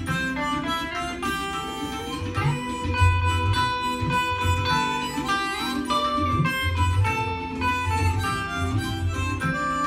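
Harmonica playing a melody of held notes over electric guitar accompaniment with recurring low bass notes.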